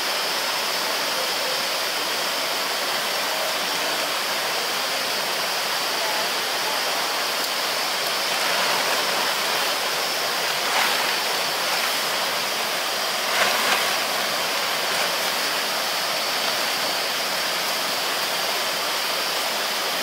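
Stream water running over rocks: a steady, even rush. A few brief louder noises come about halfway through.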